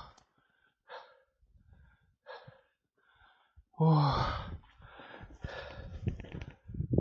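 A man breathing hard and out of breath: a couple of short breaths, then a loud gasping groan about four seconds in, followed by panting.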